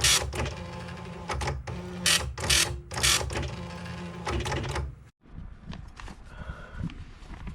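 Commodore 1526 dot-matrix printer printing: a dense, buzzing print-head rattle with several short louder bursts. About five seconds in it cuts off abruptly to quieter, scattered clicking.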